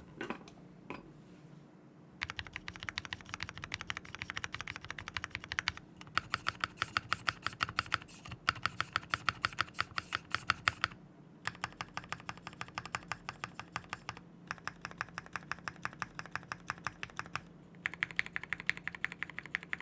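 Typing on a Glorious GMMK Pro mechanical keyboard: fast runs of key clacks in four long stretches with short pauses, starting about two seconds in. The board sounds a bit hollow, a trait its users commonly report.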